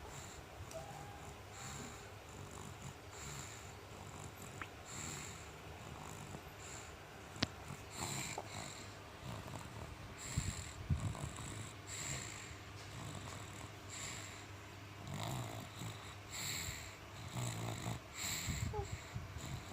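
Snoring in sleep: slow, repeated rasping breaths, one every second or two, with a sharp click about seven seconds in.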